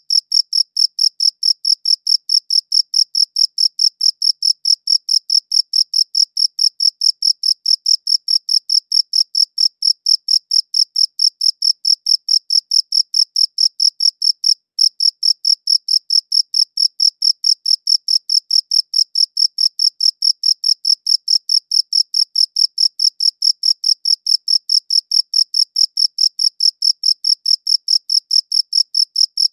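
A cricket chirping in a steady, even rhythm of about three high chirps a second, with a brief break about halfway through.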